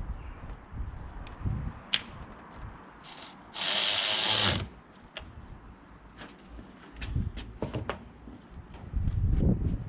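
Mechanical clicking and clunking, with a loud burst of hiss lasting about a second near the middle and a heavier low rumble near the end.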